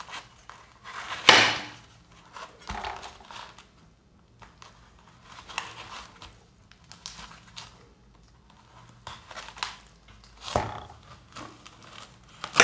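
Kitchen knife cutting and peeling the skin of a red dragon fruit on a steel ice-cream-roll plate: irregular crisp cuts and scrapes, the loudest about a second in and another near the end.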